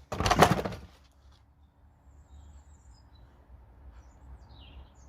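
A brief loud noisy sound lasting under a second at the start, then faint birds chirping near the end.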